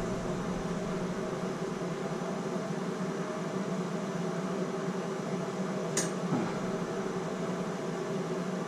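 Handheld gas torch burning with a steady hiss as the brass shower valve body is heated for soldering. A single brief tick about six seconds in.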